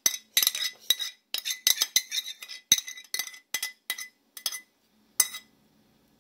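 Metal utensil clinking and scraping against a bowl as beaten eggs are worked out of it, several quick ringing clinks a second. The clinks stop about four and a half seconds in, with one last clink shortly after.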